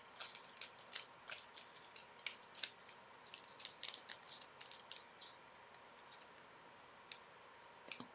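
Small plastic crinkles and clicks of a trading card being slid into a plastic card sleeve by hand, coming thick and fast for about five seconds and then thinning out.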